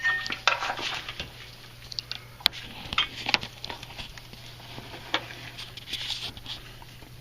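Small metal parts being handled and fitted by hand: irregular light clicks, clinks and short scrapes as a banjo bolt, crush washers and brake line fitting are set against a brake caliper.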